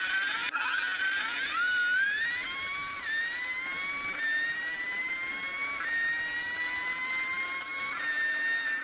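A high-pitched whine with overtones. It glides upward over the first two seconds, then holds steady, jumping to a slightly different pitch every second or two.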